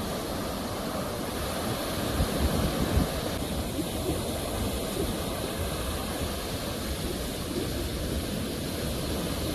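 Sea waves washing on a shore: a steady rush of surf, swelling a little louder about two to three seconds in.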